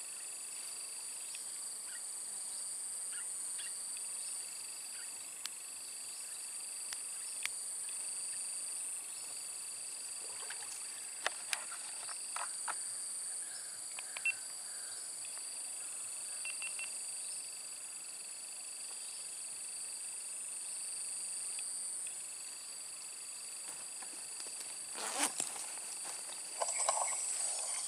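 Insects trilling steadily at several high pitches, the layers dropping out and coming back every few seconds. A few scattered clicks sound over them, and a louder clatter of handling noise comes near the end.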